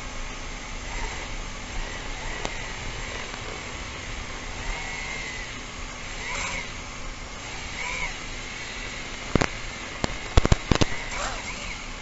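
A bird calling over and over with short arched calls every second or two, against a steady hiss. A quick cluster of sharp clicks comes near the end.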